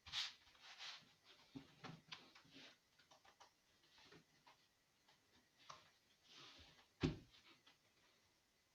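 Faint, scattered clicks and rustles, like small objects being handled, with one sharper knock about seven seconds in.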